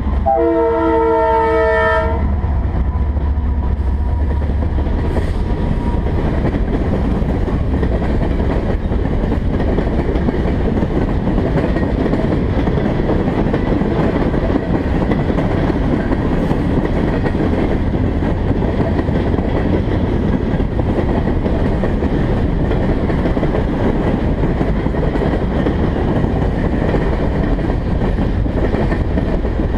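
A diesel locomotive's multi-note air horn sounds for its last couple of seconds at the start, over the low rumble of the passing locomotives, which fades within the first few seconds. Freight cars then roll steadily past close by, with a loud, even rumble of wheels and a clickety-clack over the rail joints.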